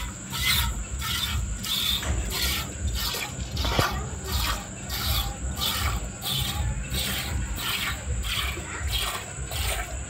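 Milk squirting from a cow's teats into a steel bowl under hand milking: a hissing spray about twice a second, each stroke of the hand sending a jet against the metal.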